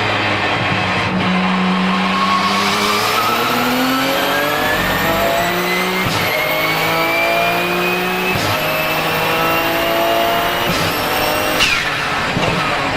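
Porsche 997 GT2 RSR's twin-turbo 3.9-litre flat-six pulling hard under full throttle, with turbo whistle over the engine note. The pitch climbs and breaks at three quick upshifts of the sequential gearbox, about six, eight and eleven seconds in. Near the end the throttle lifts: the engine note drops suddenly and a whistle falls away.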